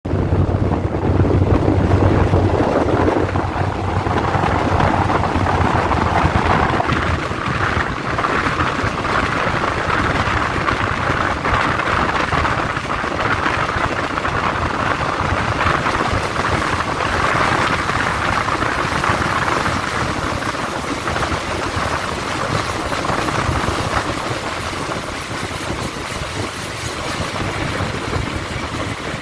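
Running noise of an express passenger train heard from a carriage window: wheels rolling on the rails with rushing air, steady and loud, easing off a little near the end as the train draws into a station.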